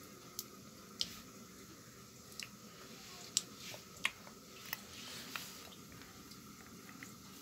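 A baby eating cooked rice with her hands from a stainless steel bowl: soft squishing with small, sharp clicks scattered irregularly.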